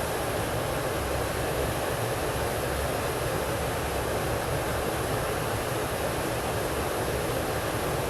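Steady rushing of fast water below a river dam with its turbine running, an even unbroken noise.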